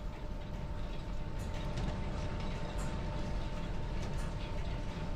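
Steady low mechanical running with a faint whine from the belt-driven shop machinery, with a few light metallic clicks as a steel leadscrew is screwed into a new square-threaded bronze nut, the thread going in smoothly.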